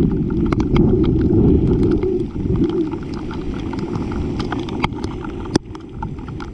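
Heavy rain and wind on the microphone: a dense low rumble, with many sharp ticks of raindrops striking the camera. The rumble eases about two seconds in.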